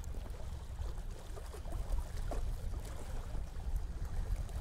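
Low wind rumble on the microphone over small waves lapping against the rocky shore, with a few faint ticks.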